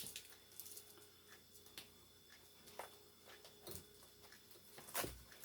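Faint, scattered clicks and taps from air fryer parts and packaging being handled, with a soft knock about five seconds in.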